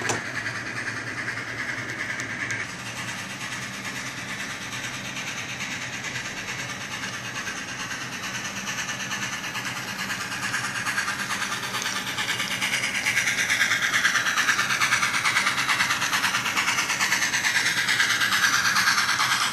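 Model steam locomotive's Tsunami sound decoder playing steam running sounds through its small onboard speaker, mixed with the model's wheels and cars rolling on the track. The sound grows louder about two-thirds of the way in as the locomotive and its cars pass close.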